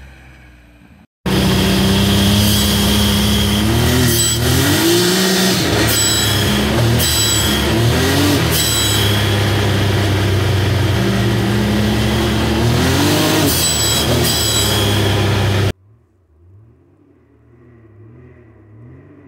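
Turbocharged Rotax three-cylinder engine of a 2019 Can-Am Maverick X3 Turbo R, heard from inside the cab, running and revving up several times, with short sharp blow-off valve releases as the throttle closes after each rev. Near the end it cuts off abruptly, giving way to the same kind of engine revving, much fainter and far off.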